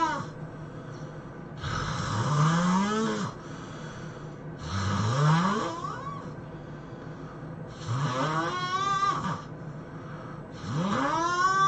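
A person snoring heavily in a steady rhythm, about one snore every three seconds. Each snore is a long, loud, buzzing in-breath that rises in pitch.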